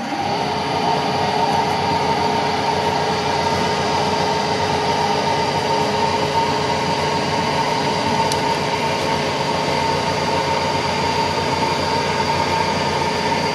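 Milling machine spindle running steadily with a constant whine as a carbide end mill is fed up to the outside edge of a differential input flange. The level rises in the first second, then holds even.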